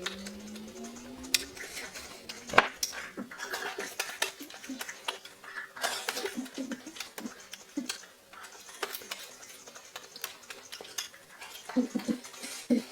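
Close-up eating of an apple: a dense run of crunches and sharp clicks from biting and chewing, opening with a short rising 'mmm' hum.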